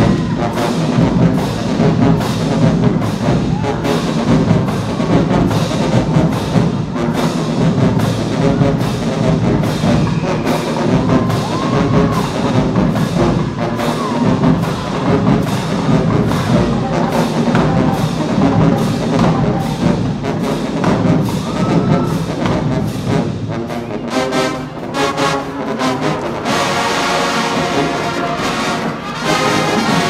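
High school show-style marching band playing live: the percussion keeps a steady beat of about two strokes a second under the band. About four seconds from the end, the brass section comes in with loud held chords.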